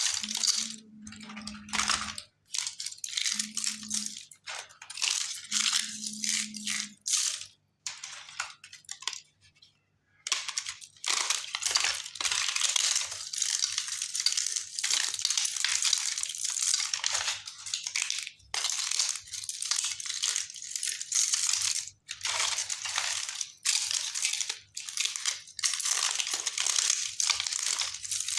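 Chunks of multani mitti (Fuller's earth clay) being crushed and crumbled: a dense run of dry crunches and crumbles, thinning out and briefly stopping around a third of the way through, then resuming. A low hum comes and goes three times in the first seven seconds.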